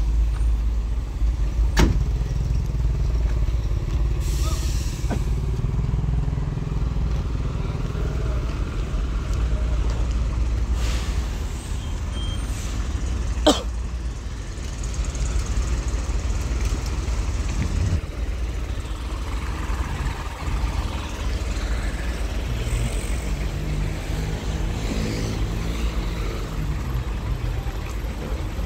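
Heavy truck's diesel engine running with a low, steady rumble. Short hisses come a few seconds in and again about eleven seconds in, and there is a single sharp knock about halfway through.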